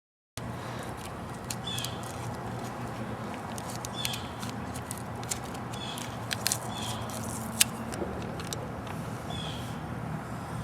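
Steady background with a low, even hum, short high chirps about every second, and a few sharp clicks.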